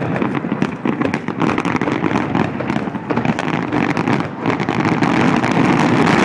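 Aerial firework shells bursting in a finale barrage: a dense, continuous run of overlapping booms and crackles with no gaps, growing louder about five seconds in.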